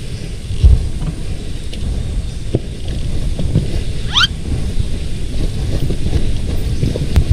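Wind buffeting the microphone with the low rumble of a dirt bike moving along a trail, with irregular low thumps throughout. A short rising whistle sounds once, about four seconds in.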